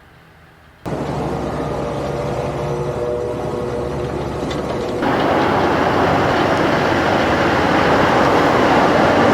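CLAAS Axion 960 Terra Trac tractor working a field, its diesel engine running under load with a dense rattling noise. The sound is faint for about the first second, then jumps up suddenly, and about five seconds in it steps up again, louder and brighter.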